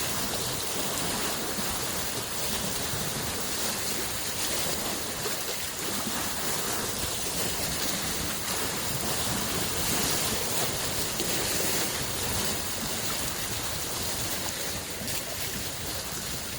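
Small lake waves washing steadily against the shore, a continuous even wash that swells a little about two-thirds of the way in.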